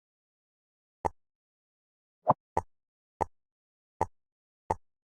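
Six short clicks at uneven intervals as jigsaw puzzle pieces are put into place, with a quick double click a little past two seconds in.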